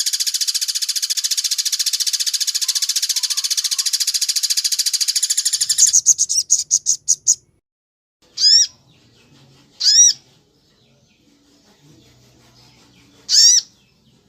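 Bird-training recording of a wild bird: a fast, high-pitched trill that runs for about six seconds, slows into a few separate notes and stops, followed by three single sharp call notes spaced a couple of seconds apart.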